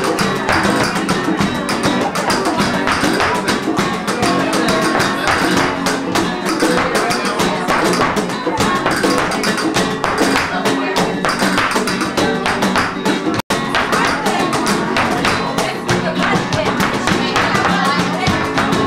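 Live flamenco music: two acoustic flamenco guitars playing over a cajón beat and hand clapping, with many sharp percussive strokes. The sound cuts out for a split second about two-thirds of the way through.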